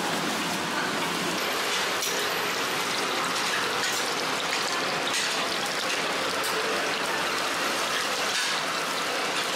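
Scallion pancakes frying in hot oil: a steady, crackling sizzle.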